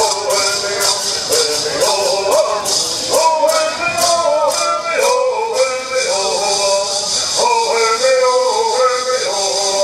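Bird singing: a group of men singing in unison while shaking gourd rattles in a steady, quick beat, about three strokes a second. The rattling is clearest in the first few seconds.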